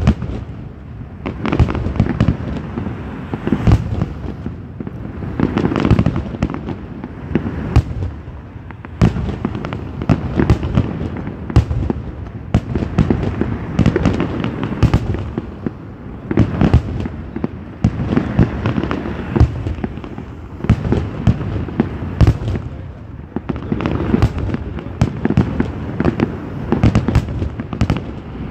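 Aerial fireworks display: a dense, continuous barrage of shell bursts and bangs, many a second, swelling and easing in waves.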